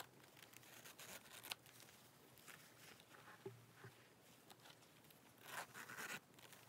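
Faint metal-toothed zipper on a leather wristlet being pulled by hand in a few short rasping runs, the longest about five and a half seconds in, with light handling of the leather between.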